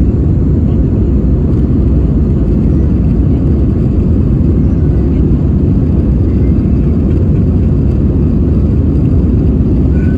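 Steady low roar of an Airbus A320's engines and airflow heard inside the passenger cabin, even and unbroken throughout.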